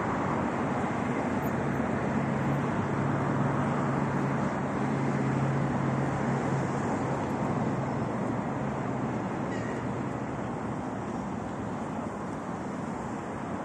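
Road traffic noise: a steady wash of passing cars with a low engine hum through the first half, growing slightly quieter near the end.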